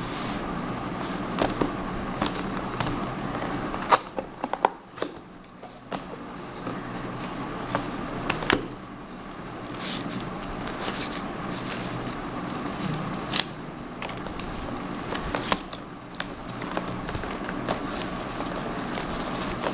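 Cardboard box being opened and handled, its flaps and polystyrene packing scraping and rustling, with scattered sharp clicks and knocks. A steady hum runs underneath.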